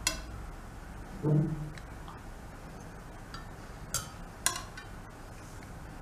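A steel table knife clinks against a ceramic plate while cutting and lifting a slice of soft sponge cake: one sharp clink at the start and two more about four seconds in. There is a brief low sound about a second in.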